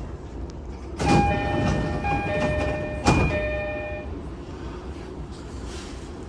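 Door chime of a JR East E231 series commuter train: a two-tone chime alternating for about three seconds, with a thud as it starts and another about two seconds later as the sliding doors move. The uploader describes this chime as slightly degraded.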